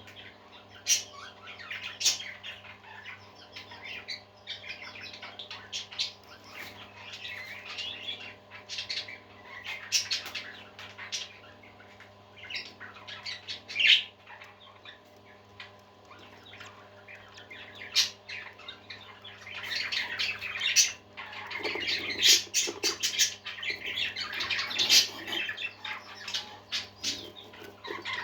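Several parakeets chattering and warbling continuously, with sharp loud squawks now and then; the chatter grows busier near the end. A steady low hum runs underneath.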